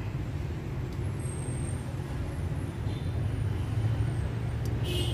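Steady low rumble of road traffic, with a brief hiss near the end.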